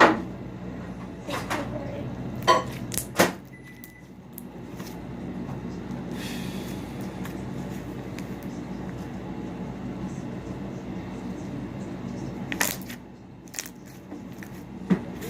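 Slime being kneaded and squeezed by hand, giving a run of sharp clicks and pops with a softer squishing noise between them.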